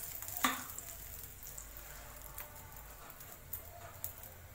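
Ghee crackling faintly on a hot iron tawa, with a sharp tap about half a second in and two soft clicks near the end.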